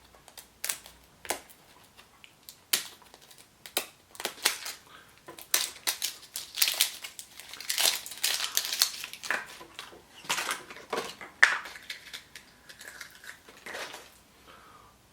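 A Chupa Chups surprise egg being unwrapped and opened by hand: irregular wrapper crinkling and crackling with sharp plastic clicks and snaps.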